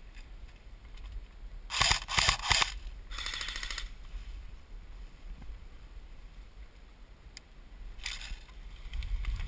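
Airsoft guns firing: a quick run of shots about two seconds in, then a rattling burst of rapid fire, and another volley near the end.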